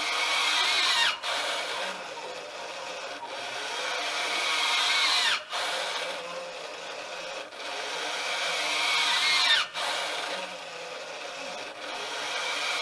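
Sail-winch servo of an automated Ambu-bag ventilator whining as it drives the arm through its squeeze cycles. The whine builds over about three seconds, then drops in pitch and cuts off, three times at about four-second intervals.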